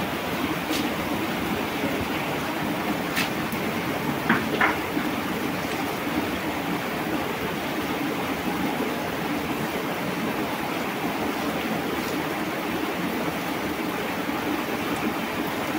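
Steady rushing of water, with a few sharp clicks about one, three and four and a half seconds in.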